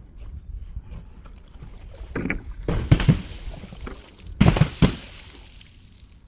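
Glass bottle being struck or broken: two loud impacts, about three and four and a half seconds in, each followed by a fading hiss.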